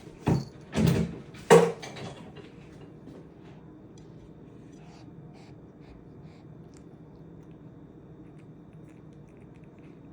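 A cat eating wet food from a dish: three loud knocks or scrapes in the first two seconds, then faint small clicks of licking and chewing.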